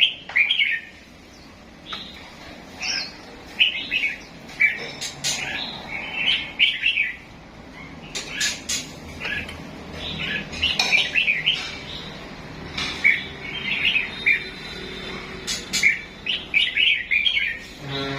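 Pet cage songbirds chirping and warbling in short, repeated bursts of rapid high notes.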